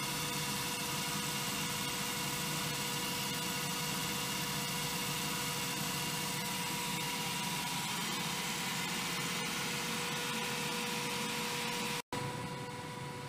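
Electric motor of a Greenpower race car running steadily on a stand, driving the chain through its derailleur gearing: a steady mechanical whir with a constant whine. It cuts off abruptly near the end, leaving a quieter steady hum.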